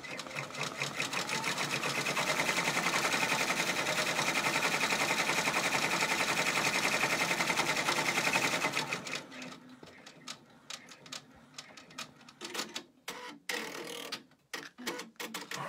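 Brother PR655 six-needle embroidery machine stitching at speed, a rapid even run of needle strokes that stops about eight and a half seconds in. Scattered clicks and knocks follow.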